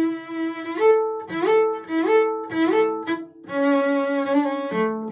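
Cello playing a slow bowed melody. A long held note is followed by a repeated figure of notes that slide up in pitch, then another long held note, with a drop to a low note near the end.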